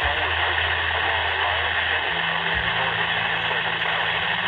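Steady radio static hiss from a weather radio receiver on a weak signal, with a faint low hum underneath.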